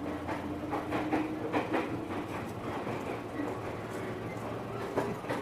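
Electric commuter train car running, heard from inside: a steady rumble and hum, with a run of knocks and clatter in the first couple of seconds and one more knock near the end.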